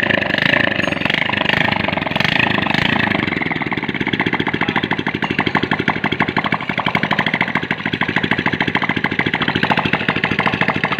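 Honda XRM110's single-cylinder four-stroke engine idling steadily with a fast, even putter, running again after its cylinder block was rebored.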